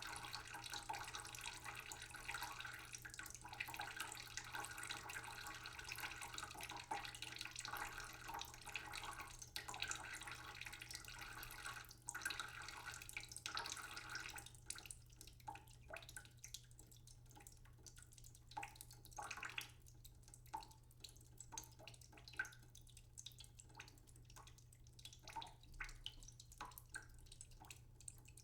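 Water running in a steady stream, likely from a tap. About halfway through the flow stops, and scattered single drips fall irregularly.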